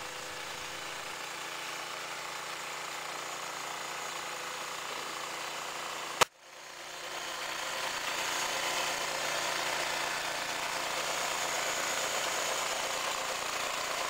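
Oscar 118 Hobby band sawmill running steadily, its 6.5 hp Briggs & Stratton engine driving the band blade through a cant. A sharp click about six seconds in, followed by a brief drop-out before the running sound returns.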